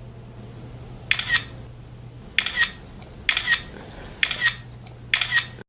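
Sharp double clicks, each a quick pair of strokes, repeated five times at about one-second intervals over a faint low hum.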